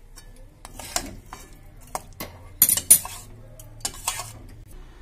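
Metal spoon scraping and clinking against the side of a metal pot as it works through thick chicken korma: a run of short scrapes and knocks, the loudest just past the middle.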